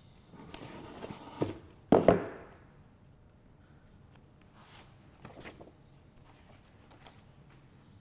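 A storage box being opened by hand: the lid is lifted and set down with a sharp knock about two seconds in, followed by faint rustling of paper as the contents are handled.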